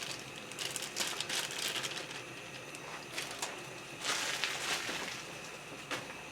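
Carrot sticks tipped into a pot of curry: a scatter of light clicks and rustling, with another rustling patch about four seconds in.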